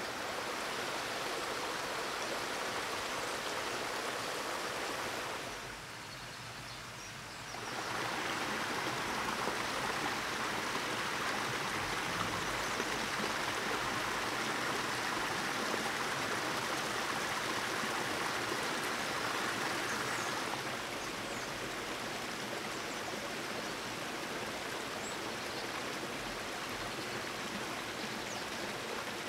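Steady rush of running water, like a stream, with no distinct events. It drops for a couple of seconds about six seconds in, is a little louder through the middle, and softer over the last several seconds.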